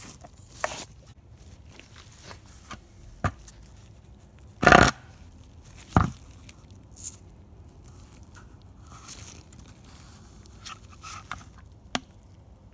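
Gloved hands handling a plastic coolant reservoir and its hose connections: scattered scrapes, rustles and sharp clicks, the loudest a short scrape about five seconds in, followed by a knock about a second later.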